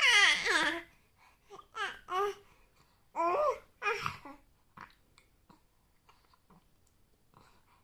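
Infant babbling in several short, high-pitched vocal bursts, the first sliding downward in pitch, all within the first five seconds or so.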